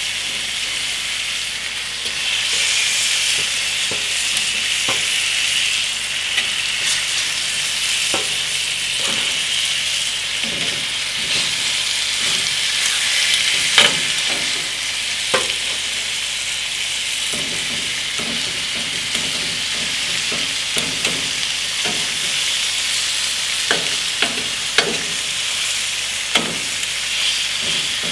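Pork chops sizzling and searing in a hot frying pan on a gas grill, a steady hiss throughout. Scattered short clicks and taps from metal tongs on the pan as the chops are laid in and moved.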